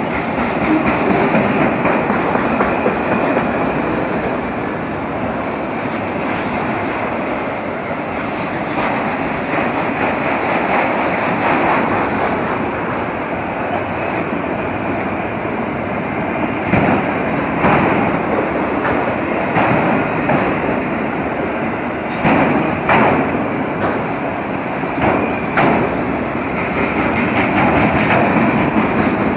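Freight train of autorack cars rolling past close by: a steady rumble and rattle of steel wheels on rail, with a few sharper clanks in the second half.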